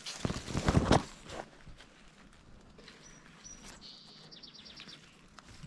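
A songbird singing: two high level notes, then a quick run of falling notes. It is preceded by a loud rustling crunch under a second long.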